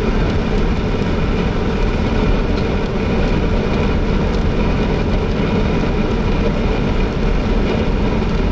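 Steady engine and road noise inside a moving vehicle.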